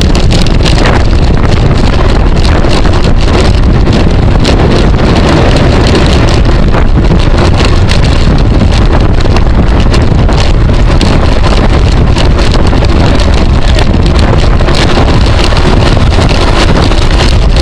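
Loud, steady wind buffeting on a bike-mounted camera's microphone from riding at race speed, with frequent small clicks and knocks through it.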